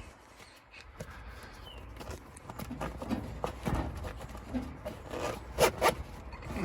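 Canvas radio cover being handled and opened to expose the set, with rubbing and scraping of the fabric and a few light clicks, then two sharp clicks close together near the end.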